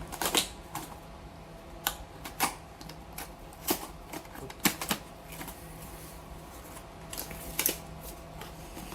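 Irregular clicks, taps and rustles of cardboard and plastic packaging being handled as a laptop box is opened, with the loudest snaps near the start and about five seconds in.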